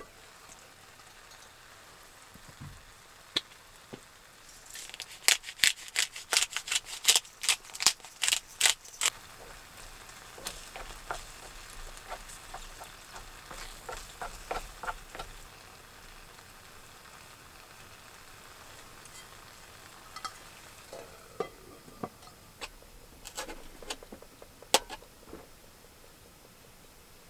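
Cooking sounds: a utensil stirring and scraping against a pan, with a quick run of sharp strokes, about four a second, some five seconds in. Fainter strokes follow, then a lull, then scattered clicks near the end.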